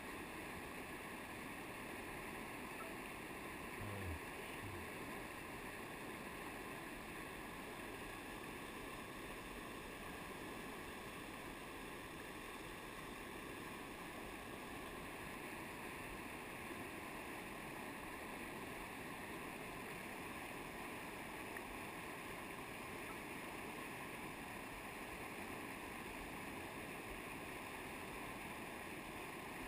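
Whitewater rapid rushing steadily, heard from a kayak sitting in the current. A couple of soft low knocks come about four seconds in.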